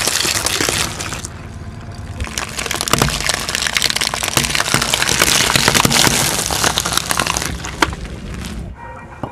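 Raw eggs cracking and crunching under a slowly rolling car tyre: a short burst of shell crackling in the first second, then a longer run of dense crackling and snapping as the tyre crushes a plastic tray full of eggs, dying away near the end.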